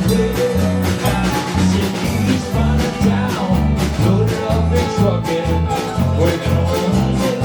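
Live band playing an upbeat country-rock song with guitar over a steady beat and a pulsing bass line.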